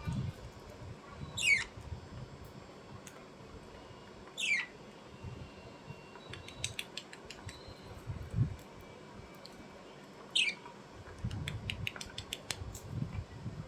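A bird giving three short, sharp calls that each fall steeply in pitch, several seconds apart, with bunches of small clicks and a few low thumps in between.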